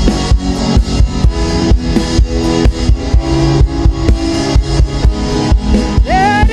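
Backing music with a steady drum-kit beat under held instrument notes. Near the end a voice comes in on a long note that rises in pitch and then wavers.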